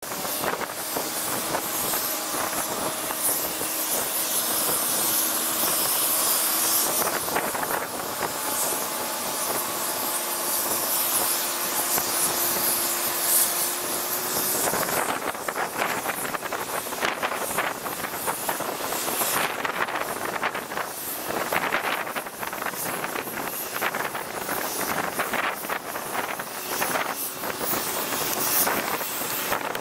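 McDonnell Douglas DC-10 trijet taxiing, its engines giving a steady jet whine and hiss with a held tone through the first half. From about halfway in, crackling wind gusts on the microphone join it.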